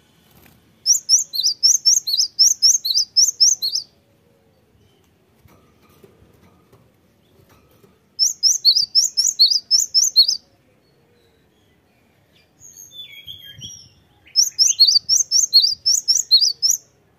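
Cinereous tit singing three bursts of its song. Each burst is a quick run of high two-note phrases, about four a second, lasting two to three seconds. Between the second and third bursts comes a softer, lower call.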